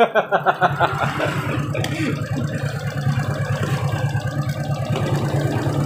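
Suzuki Shogun 125's single-cylinder four-stroke engine idling steadily with an even pulse, running with its battery disconnected and its ignition fed through a newly replaced regulator-rectifier.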